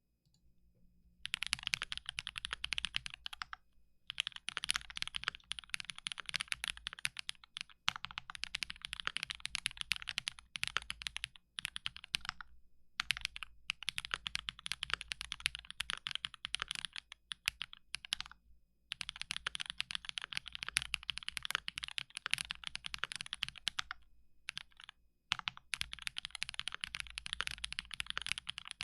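Rapid typing on a GMMK Pro mechanical keyboard with an aluminium plate, GMK keycaps and hybrid switches of Cherry black housings with Kailh stems: fast runs of key clacks broken by short pauses every few seconds.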